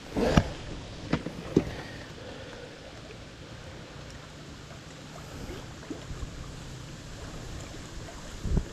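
Knocks on a fishing kayak, one loud one at the start and two lighter ones a second or so later, then steady low water noise around the hull with a faint low hum.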